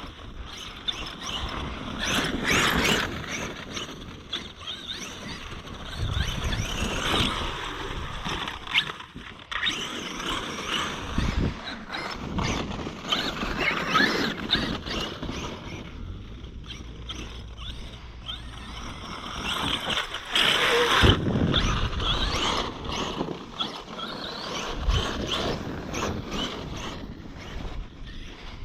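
Arrma Outkast 8S electric RC monster truck's brushless motor whining up and down in repeated throttle bursts as it is driven over loose dirt, with its tyres churning and several low thumps.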